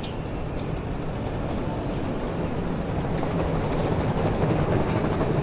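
A vehicle's engine hum and rumble growing steadily louder as it approaches along the street.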